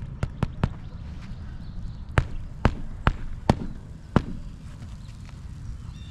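Hammer driving a roofing nail through an asphalt shingle into the roof decking: three quick light taps to set the nail, then five harder blows.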